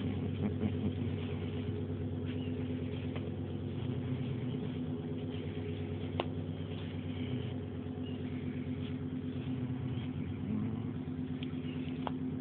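A motor running steadily at an unchanging speed, a low even hum, with a sharp click about six seconds in and another near the end.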